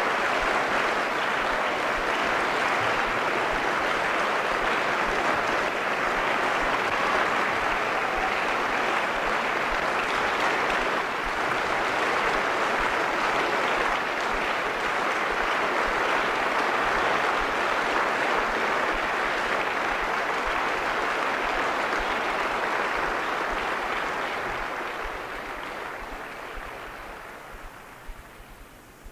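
Concert audience applauding steadily, the applause fading out over the last five seconds.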